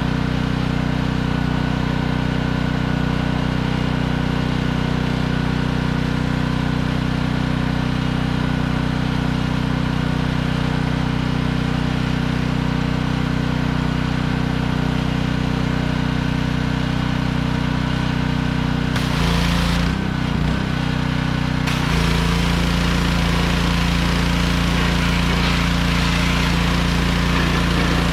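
Small gasoline engine of a pressure washer running steadily. About two-thirds of the way in the engine note shifts, and from then on a loud hiss of spray runs over it.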